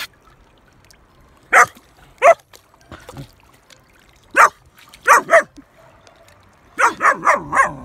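German Shepherd puppy barking in short, sharp yaps, about ten in all with gaps between them and a quick run of four near the end.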